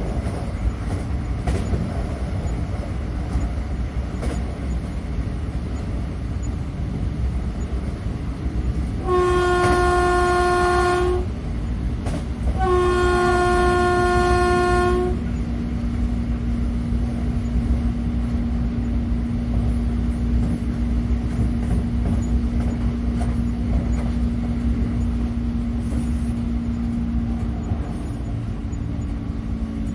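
Train running with a steady low rumble, its horn sounding two long blasts of about two seconds each, a second apart, about a third of the way through.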